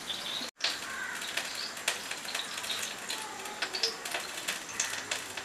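Low kitchen background noise with scattered light clicks and a few brief high chirps, cut to silence for a moment about half a second in.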